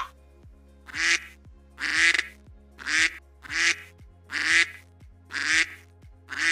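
Duck quacking, seven quacks about a second apart, over soft background music.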